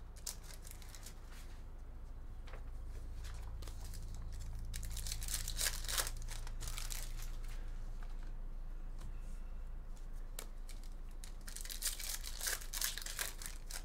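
Foil wrapper of a Topps Chrome baseball card pack being torn open and crinkled by hand, crackling in repeated bursts, heaviest about five seconds in and again near the end.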